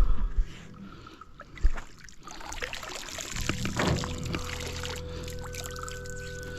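Two dull thumps, then water splashing and pouring for about two seconds, typical of a fishing magnet and its wet rope being handled at the water's edge. A few faint steady tones run underneath.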